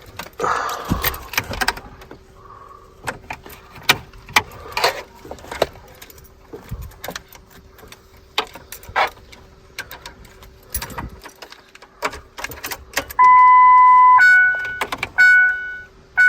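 Keys jangling and clicks of handling inside a Ford F-150's cab. Then the truck's electronic warning chime sounds: one long tone about 13 s in, followed by short dings repeating about once a second.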